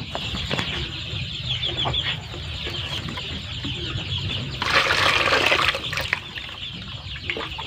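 Young chickens cheeping. About four and a half seconds in, water from a plastic chick drinker is poured out into a plastic bucket, a splashing burst lasting just over a second.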